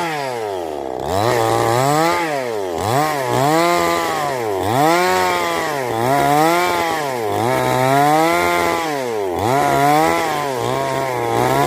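Shimura two-stroke chainsaw engine revving up and dropping back over and over, its pitch rising and falling about once a second.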